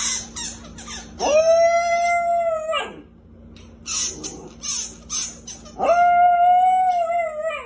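A small dog with a squeaky chew toy in its mouth: two long, steady, high-pitched squealing cries about a second and a half each, a few seconds apart, with short clicks of chewing between them.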